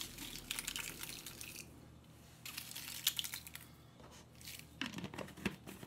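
Dried red chili peppers rattling and rustling as they are shaken out of a clear jar and drop onto a cutting board. They come in three bouts of light dry crackling.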